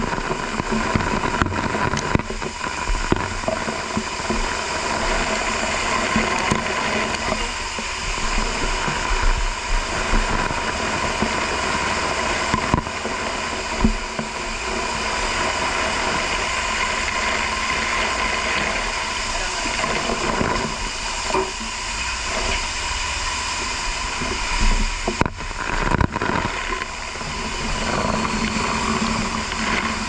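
Fire hose nozzle spraying water: a loud, steady hiss of the stream and spray, broken by a few sharp knocks, one near the middle and two near the end.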